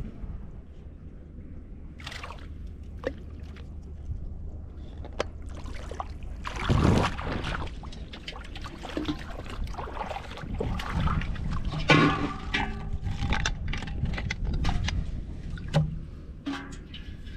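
Shallow river water sloshing and splashing around a wader's legs, with scattered knocks and clatters of handling over a steady low rumble; the loudest bursts come about seven and twelve seconds in.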